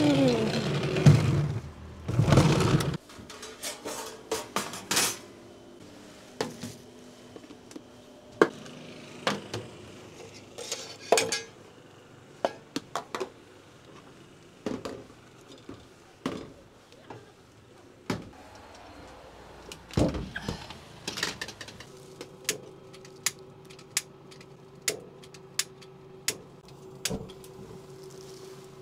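Stainless steel food containers, lids and utensils clinking and knocking one by one as they are set out on a food-truck counter. A rumble fills the first few seconds, and a steady hum with regular light clicks comes in near the end.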